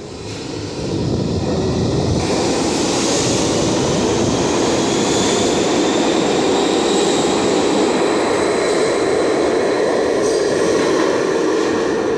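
R62A subway train pulling out of the station and gathering speed. The rumble builds about a second in and stays loud and steady, with thin high whining tones above it that slowly shift in pitch.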